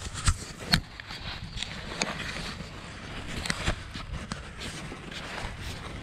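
Footsteps crunching through dry leaf litter in an irregular rhythm, with two sharper knocks within the first second.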